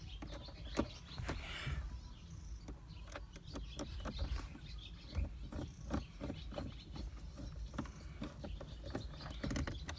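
Scattered small clicks and taps from handling plastic console trim parts and screws, over a low steady hum.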